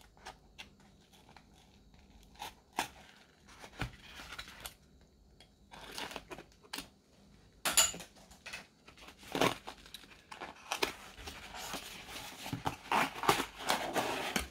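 Packing tape being slit with a small finger cutter and torn off a cardboard box, with the box's flaps and card handled: a string of short tears, scrapes and taps that grows busier in the last few seconds.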